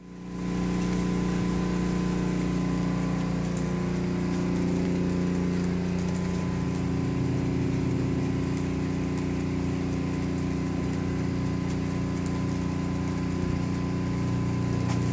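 A steady low mechanical hum, like a motor running, with a light, scattered patter of water dripping as ice thaws.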